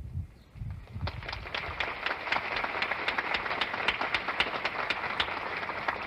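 Large audience applauding, a dense clatter of many hands clapping that builds up within the first second and holds steady.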